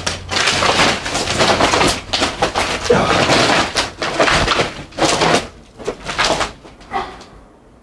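Footsteps crunching and scraping over rubble and debris in a derelict building, a run of loud gritty bursts that fades away near the end.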